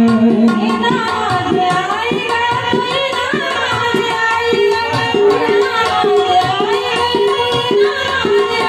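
Instrumental interlude of a Marathi song: a steady hand-drum rhythm under a gliding melody line.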